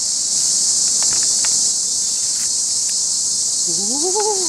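Steady high-pitched insect chorus buzzing without a break. Near the end comes one short rising-and-falling voice.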